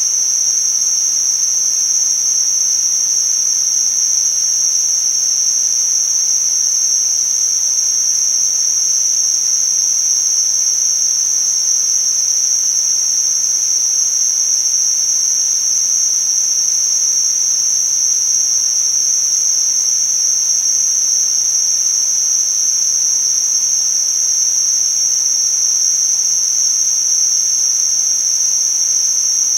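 Tinnitus-masking noise: a steady, high-pitched narrow hiss with a fainter, wider hiss beneath it, unchanging in level.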